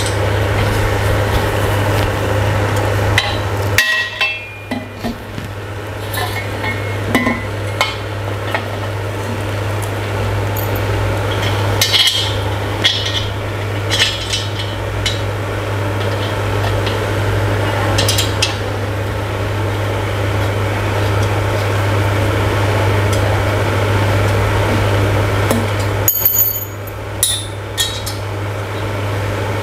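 Scattered metal clinks and knocks as the tubular steel frame of a dining chair and its screws are handled and fitted together by hand, over a steady low hum.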